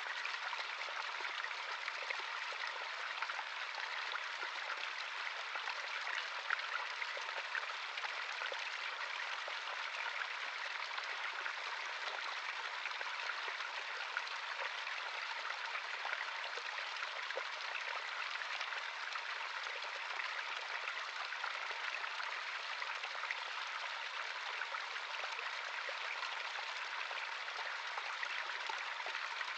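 Small stream running over stones: a steady, even babble of flowing water with many small splashes and trickles.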